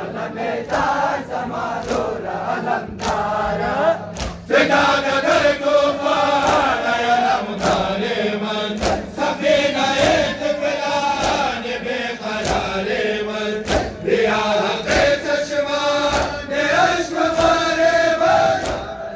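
A crowd of men chanting a noha in unison, their hands striking bare chests in a steady beat about once a second (matam). The chanting swells about four and a half seconds in.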